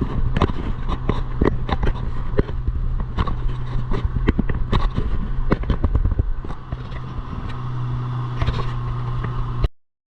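An engine running at a steady pitch, with many irregular knocks and rattles over it. It cuts off suddenly near the end.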